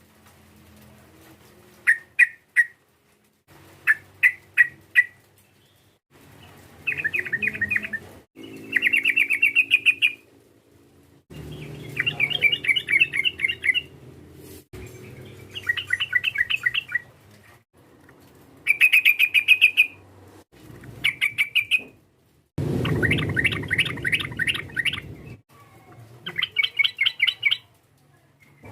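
Yellow-vented bulbul (trucukan) calling: rapid chattering phrases of quick, bubbling notes, repeated every couple of seconds with short pauses between them.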